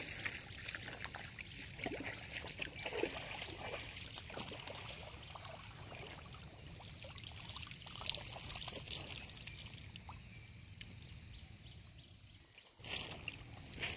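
Quiet splashing and sloshing of shallow pond water as a hand scoop net is worked through it by someone wading, with small irregular splashes and drips.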